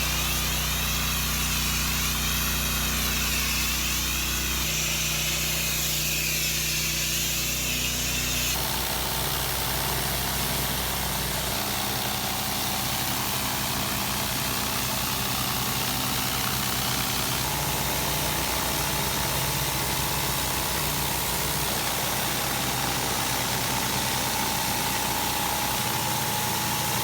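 Pressure washer's engine running steadily under a hiss of spray, in several pieces joined with abrupt changes in pitch and tone.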